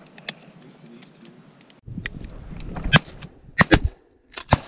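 Shotgun shots from several duck hunters firing at an incoming bird: four sharp blasts over the last two seconds or so, two of them almost on top of each other. Wind rumbles on the microphone.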